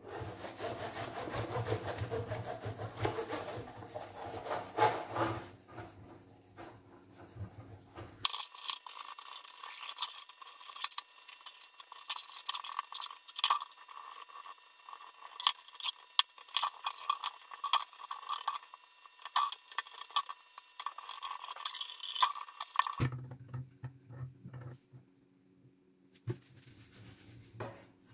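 Hand rubbing and scraping strokes on a hard surface. After about eight seconds the deeper part of the sound drops out, leaving a thin stretch of sharp clicks and scratches. The fuller rubbing returns near the end.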